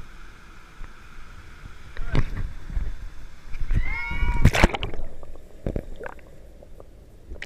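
A woman's high-pitched yell as she jumps, cut off about four and a half seconds in by the loud splash of her body plunging into the water. It is followed by a few muffled knocks heard with the camera underwater.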